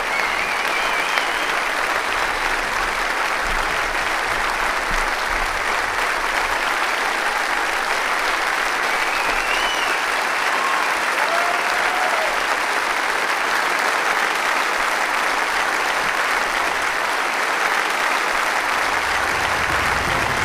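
Large theatre audience applauding steadily, with a few faint shouts rising out of the clapping.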